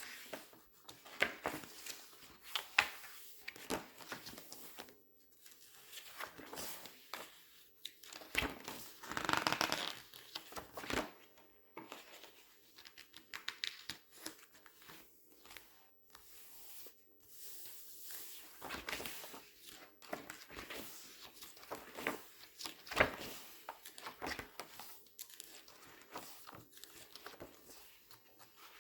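Glossy paper pages being turned and squeezed close to the microphone, giving repeated crisp crinkling and rustling. The longest and loudest rustle comes about nine to ten seconds in.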